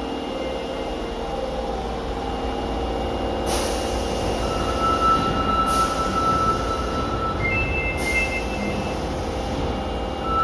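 Osaka Metro 22 series subway train running through the station with a steady low rumble. From about four seconds in there are thin, steady high squeals, and three sharp hisses come about two seconds apart.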